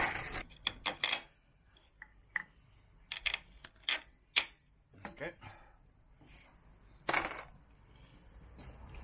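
Irregular light metallic clinks and knocks, a dozen or so short taps with a brief scrape about seven seconds in, as a motorcycle's aluminium swinging arm is handled and pushed up into place.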